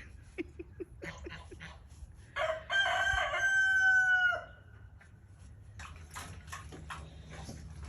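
Rooster crowing once, a single call of about two seconds that starts a little over two seconds in, holds a steady pitch and drops at the end. It is preceded by a few short low clucks.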